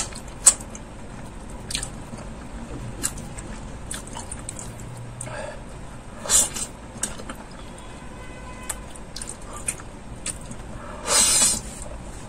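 Close-miked eating of Schezwan noodles: wet chewing with scattered mouth clicks, and two louder slurps of noodles, one about six seconds in and a longer one near the end.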